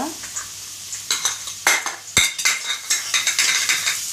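Metal spatula scraping and knocking against a steel kadai while chopped onion is stirred in hot oil: a run of clinks with a brief metallic ring, the sharpest knock about two seconds in.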